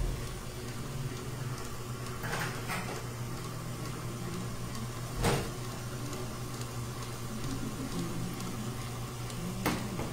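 Stand mixer running steadily, its whisk beating whipping cream. A few short, sharp knocks come over it, the loudest about five seconds in.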